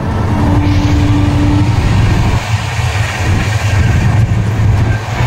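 Passenger train running, heard from inside the coach: a loud, steady rumble of wheels on the track with rattling noise above it. A short steady tone sounds for about a second near the start.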